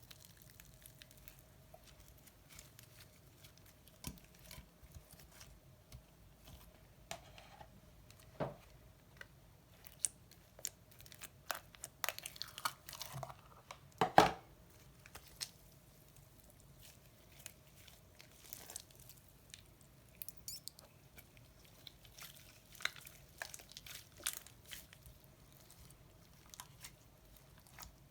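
Slime being mixed and worked by hand: scattered sticky clicks, pops and squelches, busiest in the middle with the loudest pop about halfway through.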